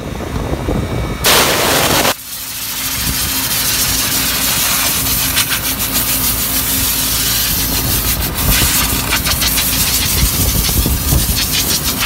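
Compressed nitrogen blowing from a hose nozzle through an air-conditioner condenser coil to blast dust out of the fins: a short loud blast a little over a second in, then a long steady hiss, with a steady low hum beneath. The coil is being cleaned because the unit is running with high head pressure.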